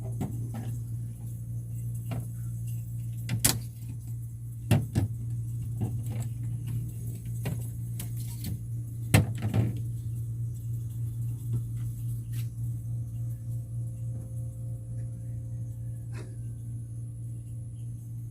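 A steady low hum with a few sharp knocks over it, the loudest about three and a half, five and nine seconds in.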